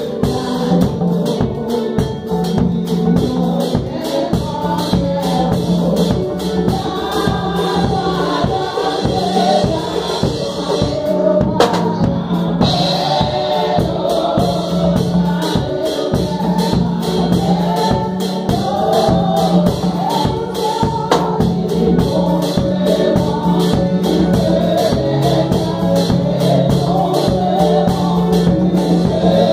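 Live gospel praise music: group singing over a drum kit, with the bass drum pedal worked by foot and a steady, rapid beat of percussion strokes.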